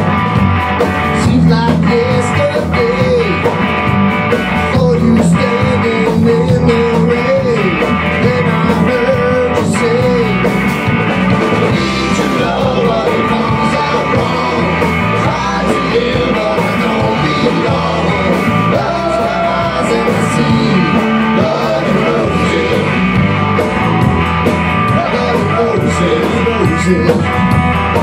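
Rock band playing live: electric guitar, electric bass and a Tama drum kit, loud and without a break, with a wavering melody line over the first ten seconds.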